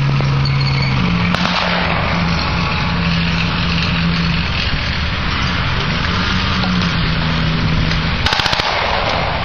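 Tank engines running steadily as the armoured vehicles drive across the field, with a short rapid burst of blank machine-gun fire near the end.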